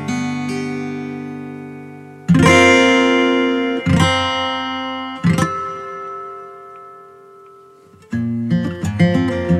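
Acoustic guitar music. A strummed chord is struck hard a couple of seconds in, with two more strums soon after, each left to ring and fade. Quicker picked notes resume near the end.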